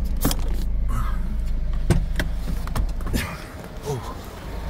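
Car engine running with a low, steady rumble that drops away about three seconds in, as if switched off. Several sharp clicks and knocks come over it as a car door is unlatched and opened.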